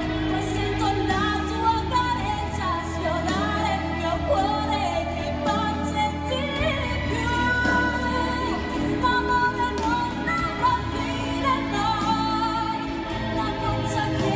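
Pop song performed live: a woman singing over band accompaniment, her held notes wavering with vibrato.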